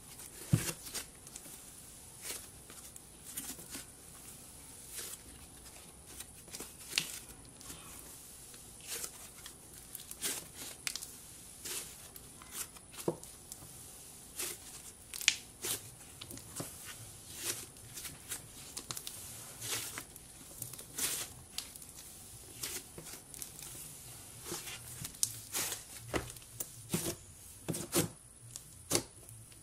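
Thick green slime being kneaded, poked and stretched by hand: irregular sticky pops, crackles and tearing sounds, with a run of louder pops near the end.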